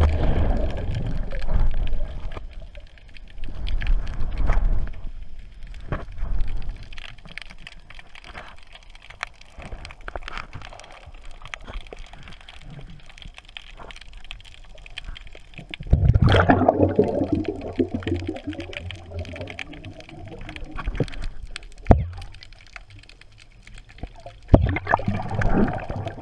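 Underwater gurgling of air bubbles, heard through a submerged camera, from air released to blow bubble rings. Bursts of bubbling come and go, the longest about two-thirds through, with a single sharp knock a little later.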